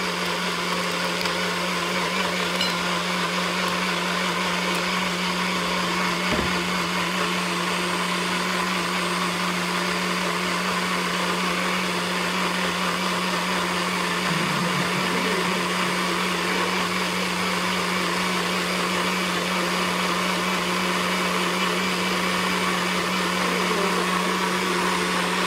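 Countertop jug blender running steadily at one speed, blending a smoothie. Its motor hum stays even throughout and cuts off suddenly at the end.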